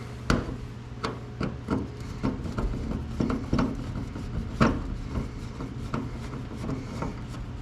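Irregular clicks, taps and knocks of a screw being worked out and parts handled on a car door, with a sharper knock just after the start and another about four and a half seconds in.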